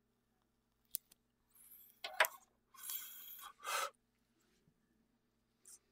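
A joint being lit with a lighter: sharp lighter clicks, the loudest about two seconds in, and short breathy hisses as the joint catches and is drawn on.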